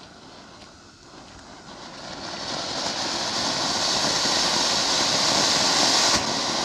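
Big-size anar (flower-pot firework fountain) spraying sparks with a steady hiss that builds over the first two to three seconds and then holds loud.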